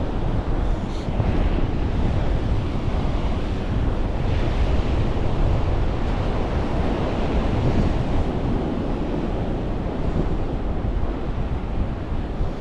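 Ocean surf washing onto the beach, with strong wind buffeting the microphone and making a steady low rumble.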